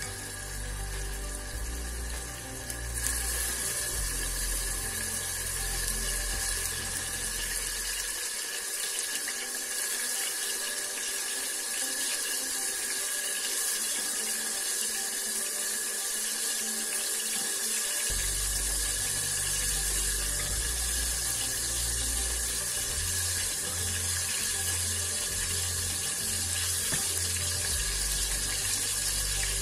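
Onions frying in hot oil in a pan, a steady sizzle, over background music whose bass drops out for several seconds in the middle.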